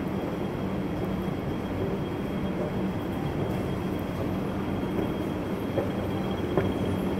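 Steady low mechanical hum and rumble of indoor building machinery, with a faint high whine held above it. A few light ticks come near the end.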